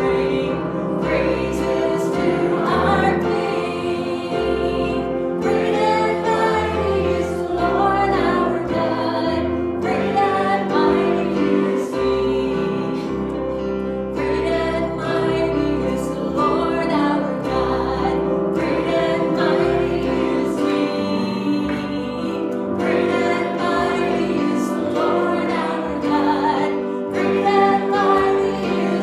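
Worship music: voices singing a hymn together over instrumental accompaniment with held chords and a stepping bass line.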